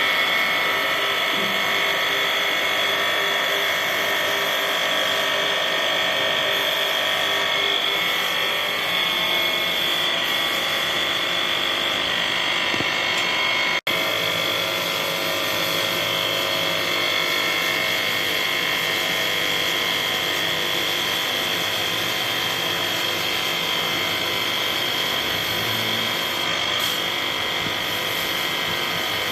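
A small electric motor running steadily with a high whine, dropping out for an instant about halfway through.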